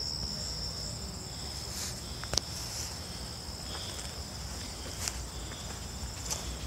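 Insects trilling in a steady, continuous high tone, with a few faint footstep scuffs and one sharp click about two seconds in.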